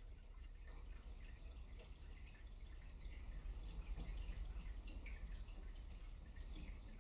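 Faint, quick, irregular small clicks and scrapes of hands handling small steel bolts and ball bearings and stirring epoxy on paper, over a low steady hum.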